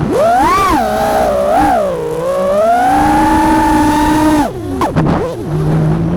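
FPV freestyle quadcopter's brushless motors whining, the pitch rising and falling with the throttle and held high for a while, then cut sharply about four and a half seconds in, dropping to a low idle hum.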